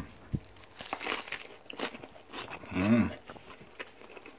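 A person biting into and chewing a fried-chicken nugget sandwich, the crisp coating crackling in short crunches, with a short hummed voice sound about three seconds in.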